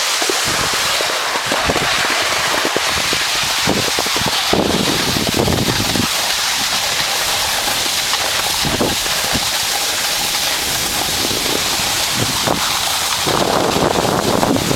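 Steady hiss of sliding over snow, with wind buffeting the microphone in low rumbling gusts.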